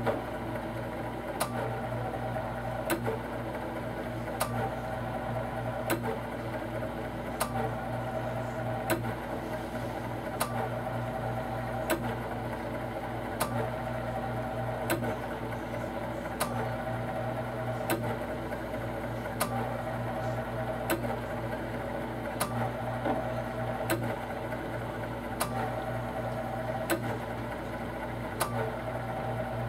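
LCD separation machine running steadily with a hum, its cutting wire drawn through the warmed adhesive between a touch screen's front glass and the LCD. A sharp click repeats about every one and a half seconds.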